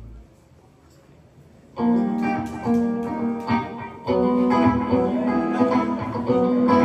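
Live rock band on electric guitars, bass and keyboard. After a brief lull, an electric guitar comes in about two seconds in with a strummed rhythm riff, and the band grows fuller and louder about four seconds in.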